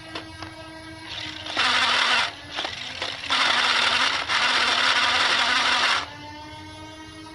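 Rapid-fire Nerf blaster firing in three bursts, the last two almost back to back and the longest close to two seconds. A steady hum runs underneath.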